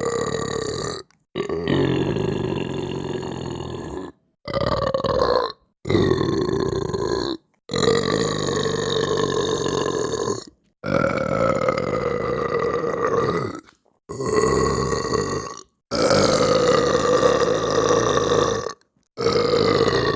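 A string of long, drawn-out belches, about nine in a row, each lasting one to three seconds at a fairly steady pitch, separated by brief dead-silent gaps.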